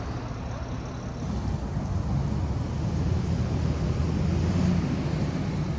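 Low, steady rumble of a motor vehicle, swelling to its loudest about four and a half seconds in and then easing off.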